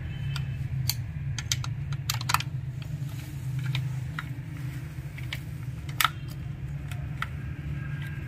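Irregular small clicks and taps of a screwdriver turning screws into a chainsaw's plastic housing, a loud single click about six seconds in, over a steady low hum.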